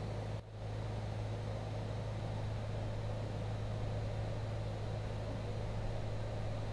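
Steady low hum with an even hiss behind it, dipping briefly about half a second in; no distinct handling clicks stand out.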